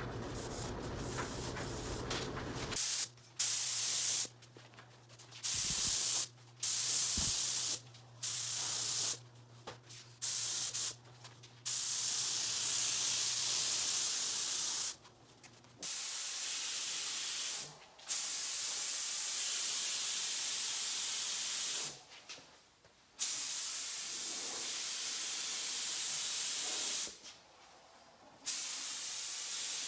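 Compressed air hissing from an air gun in repeated on-off bursts, short ones first and then longer passes of several seconds each. A steady hum is heard until about three seconds in.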